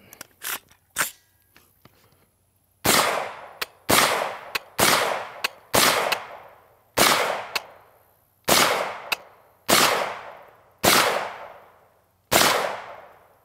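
CMMG Mk-W Anvil, an AR-15 chambered in .458 SOCOM, firing semi-automatic: nine loud shots about a second apart, starting about three seconds in, each followed by a long echo that dies away. A few light clicks of the rifle being handled come before the first shot.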